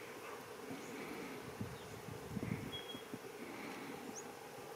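A steady low buzzing hum, with a few low thumps about two seconds in and two faint short high chirps about three and four seconds in.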